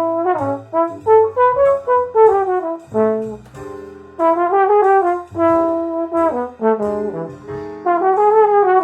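Trombone playing a flowing jazz-waltz melody, a fast run of connected notes with a brief break about four seconds in, over a sustained low bass part.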